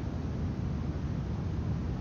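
Steady low rumbling noise with no distinct events or tones.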